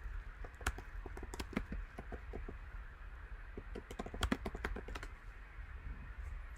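Typing on a computer keyboard: two runs of quick keystrokes with a short pause between them.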